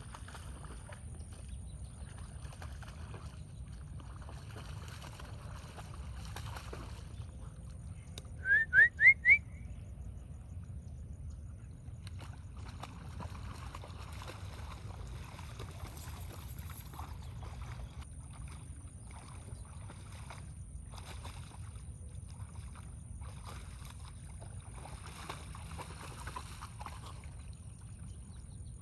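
A husky wading and pawing through shallow floodwater, splashing on and off, over a low steady rumble. About eight seconds in come four quick rising whistle-like chirps, the loudest sound.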